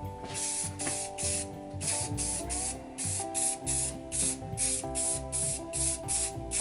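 Aerosol spray can of primer sprayed in short bursts, about two a second, coating 3D-printed prop parts. Background music plays under it.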